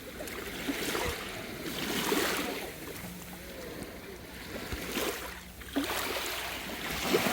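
Calm sea with small waves washing and lapping, the water noise rising and falling every couple of seconds.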